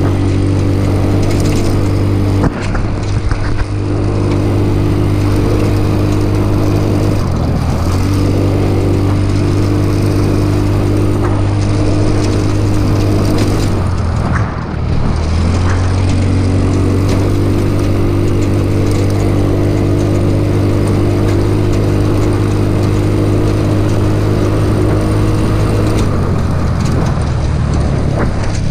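Off-road go-kart's small engine running under steady throttle, heard from the driver's seat over the rush of tyres and wind. Its pitch dips briefly three times, as the throttle is eased, and settles lower near the end.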